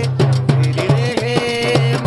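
Qawwali: a man singing a wavering, held melodic line over a steady rhythm of hand-drum strokes.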